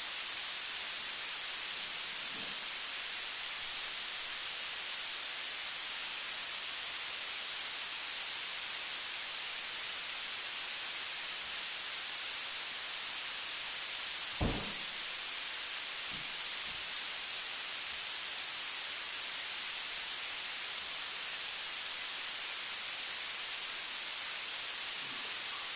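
Steady high hiss of static, with one short low thump about halfway through and two faint knocks a couple of seconds after it.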